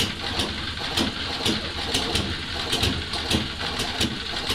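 Small hand-built model engine running, firing with sharp pops about twice a second, unevenly spaced, over a steady mechanical clatter.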